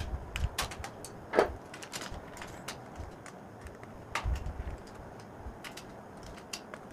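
Small screwdriver turning screws into a plastic switch board, with scattered clicks and knocks as the board is handled and turned on its wooden box; the loudest knock comes about a second and a half in.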